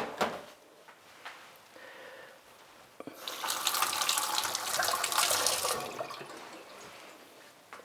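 Kitchen tap running for about three seconds, starting about three seconds in, after a single click near the start.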